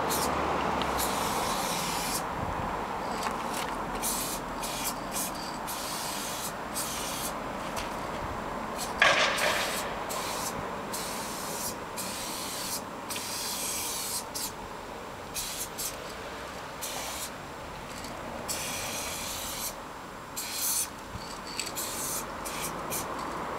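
Aerosol spray paint cans hissing in many short, stop-start bursts as graffiti is sprayed onto a wall, with a louder burst about nine seconds in.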